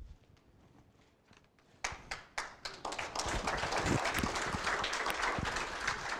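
Audience applauding, starting about two seconds in and building to steady clapping, with a few low thumps mixed in.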